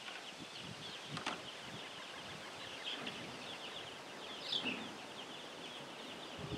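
A flock of young chickens peeping continuously, many short falling chirps overlapping, with one sharper call about four and a half seconds in. A single light knock a little over a second in.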